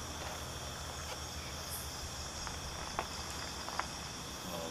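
Steady high-pitched insect chorus, with two sharp clicks about three and four seconds in.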